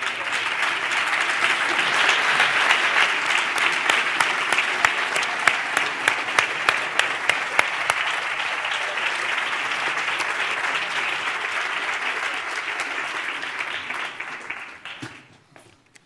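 Audience applauding steadily, with sharp individual claps standing out, dying away near the end.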